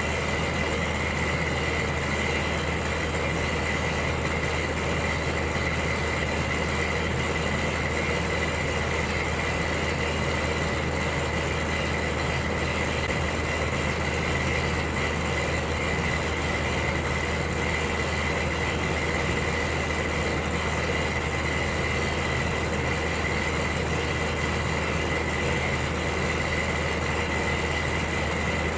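Electric heater running continuously: a steady hum under an even rushing noise, with a thin high tone held throughout.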